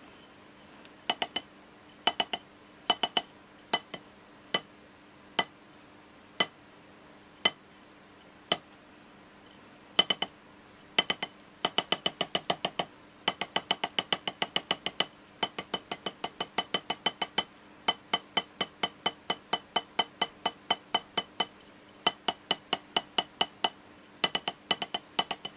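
A wooden drumstick striking a rubber practice pad on a snare drum, held loosely so it bounces: first clusters of two or three rebounds, then single strokes about a second apart, then long fast runs of even strokes from about ten seconds in.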